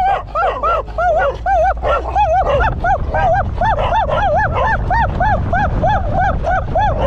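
A stray dog barking rapidly and repeatedly, about three sharp barks a second, as it chases alongside a moving car, over the low rumble of the car's engine and tyres.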